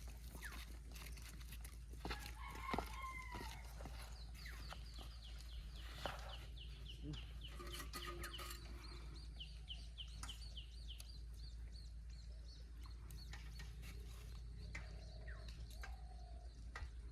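Faint chickens clucking, with a rooster crowing. A quick run of short high chirps through the middle, over a steady low hum.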